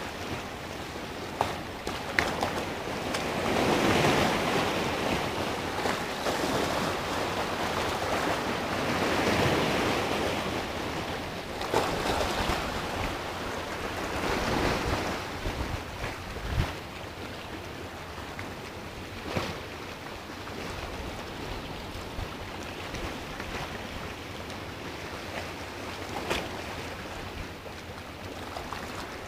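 Sea surf washing and breaking around low rocks, swelling up every five seconds or so in the first half and then settling lower, with a few sharp clicks now and then.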